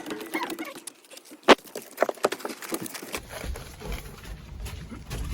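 Irregular footsteps, taps and scuffs, with one sharp click about a second and a half in.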